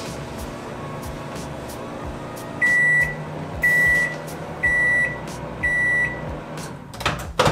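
Microwave oven running with a steady hum, then four beeps at one high pitch, each about half a second long, about a second apart: the timer signalling the end of the cooking time. A short knock near the end.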